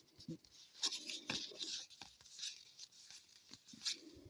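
Trading cards being handled: soft, papery rubbing and sliding of card stock against card stock, with a few light clicks, in short irregular strokes.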